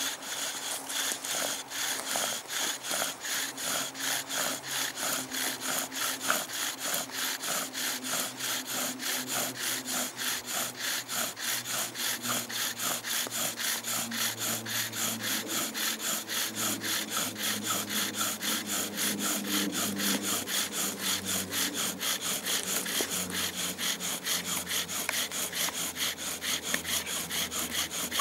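Bow drill in use: the wooden spindle grinds in a notched wooden hearth board as the bow is sawed back and forth in a quick, steady rhythm. A low drone creeps in about halfway through. By the end the friction has the hearth board smoking.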